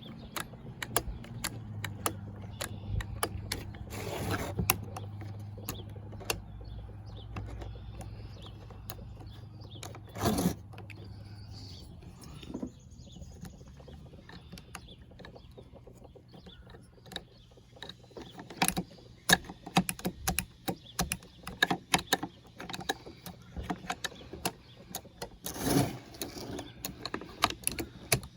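Clicks, taps and clatter of small chainsaw parts and hand tools being handled during reassembly, coming thicker in the second half, over a low steady hum that stops about twelve seconds in.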